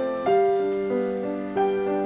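Slow, gentle piano music, with a new note or chord struck about a quarter second in and again about a second and a half in.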